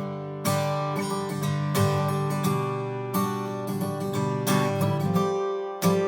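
Martin OM-28 Reimagined steel-string acoustic guitar playing ringing chords, each struck about once a second and left to sustain.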